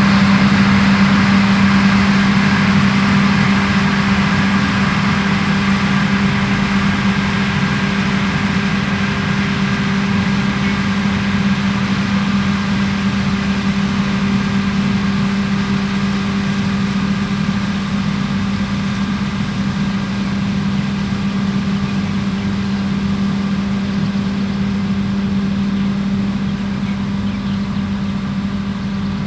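Heavy farm machinery's diesel engine running steadily, with a strong low hum and fainter tones above it, easing slightly in loudness over the stretch.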